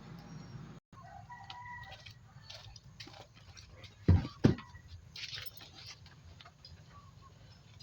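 Chickens clucking, with two loud thumps a little after four seconds in, under half a second apart.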